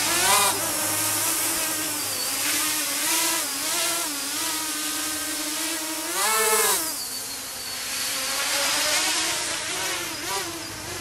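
Mini tricopter's small electric motors and propellers whining as it lifts off and hovers under its KK2 flight controller's auto-level mode. The pitch wavers up and down with constant throttle corrections and climbs sharply about six and a half seconds in. The whine grows fainter near the end.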